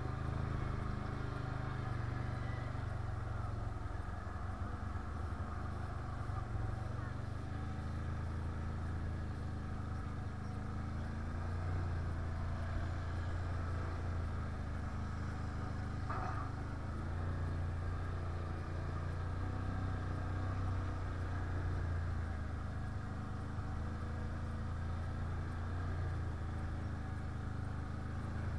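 Can-Am 1000 quad's engine running under way at a fairly even speed, its pitch drifting slightly up and down. About halfway through there is one brief higher-pitched squeak.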